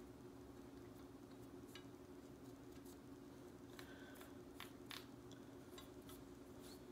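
Near silence, broken by faint scratches and light clicks as a cotton swab is rubbed over a Remington Versa Max shotgun's gas pistons to clear off the gunk; the clicks come mostly in the second half.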